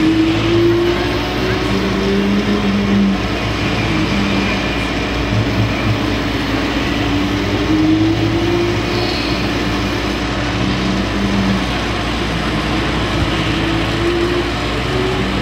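Simulated truck diesel engine from a radio-controlled model truck's sound module, running steadily with slow rises and falls in pitch, over a crowd's murmur.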